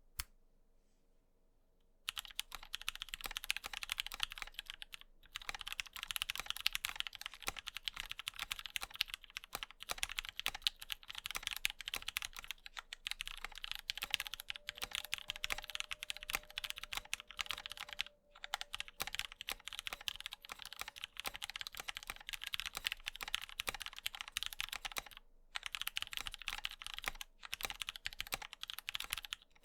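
Fast continuous typing on a Hex.3C HHKB-layout mechanical keyboard with lubed Gateron Black Ink V2 linear switches, a POM plate and ABS blank keycaps. A single key click comes first, then about two seconds in a steady stream of keystrokes starts, broken by a few short pauses.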